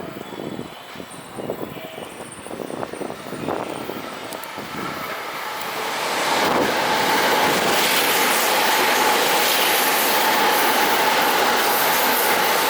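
Electric train approaching through the station, with wheels knocking over rail joints. About six seconds in it swells into a loud, steady rush as the train runs past at speed.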